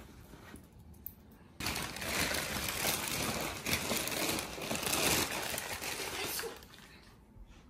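Clear plastic sheeting crinkling and rustling as it is handled, starting abruptly just under two seconds in and going on for about five seconds before dying away.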